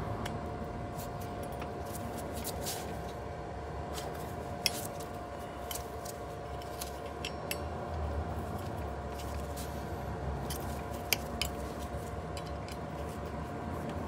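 Scattered sharp metal clicks and clinks of a hand tool breaking loose the bolts that hold a brake rotor to an electric scooter wheel, at irregular spacing over a steady hum.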